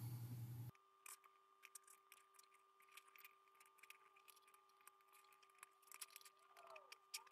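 Near silence with scattered faint clicks and taps: wires and test leads being handled and connected to a small amplifier board's terminals. A faint hum cuts off suddenly under a second in.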